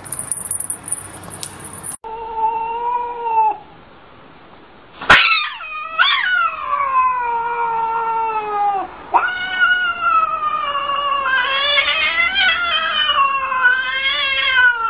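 Cat yowling in long, drawn-out wails that slide up and down in pitch, the caterwaul of a cat standing with its back arched in a defensive threat. There is a short, steadier call about two seconds in, and a sharp click just after five seconds.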